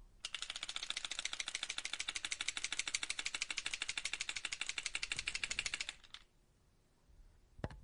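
Comedy sound effect of rapid, evenly spaced clicking, about ten clicks a second for nearly six seconds, which stops abruptly.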